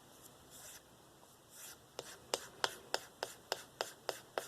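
Knife blade being stropped freehand on a balsa strop loaded with 1 micron diamond paste: a couple of soft swishing strokes, then from about halfway a quick, even run of sharp ticks, about three a second, as the blade is stroked back and forth across the strop.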